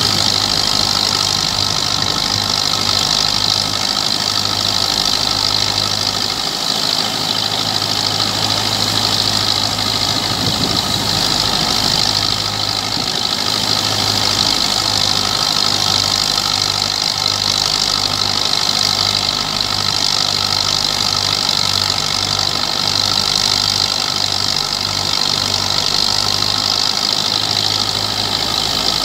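Belarus 510 tractor's diesel engine running steadily under heavy load, powering a threshing machine, with the thresher's drum and fan whirring constantly over the engine's pulsing exhaust note.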